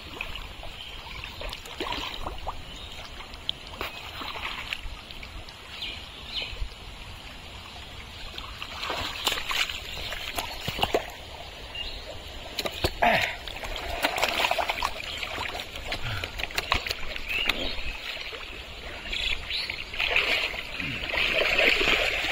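Splashing and squelching in thick wet mud and shallow water as hands work through it and a tray of catfish is pushed along, with many short wet slaps. The splashing grows loudest near the end.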